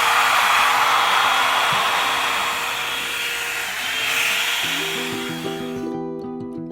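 Hot-air brush blow dryer running: a steady rush of air with a thin high whine, which cuts off about six seconds in. Background music comes in near the end.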